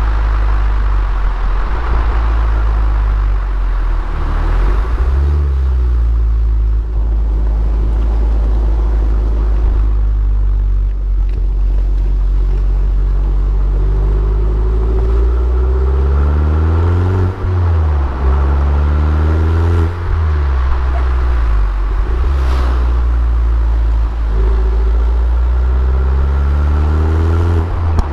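Abarth Punto Evo's turbocharged 1.4-litre four-cylinder engine running steadily, then climbing in revs several times. The pitch drops sharply about two-thirds of the way through and again shortly after, then rises once more near the end.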